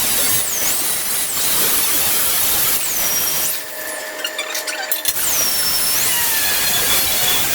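Angle grinder working stainless steel pipe: a loud hissing grind with a high whine that sags in pitch each time the disc bites and recovers as it eases off. It drops out for about a second and a half in the middle, then starts again.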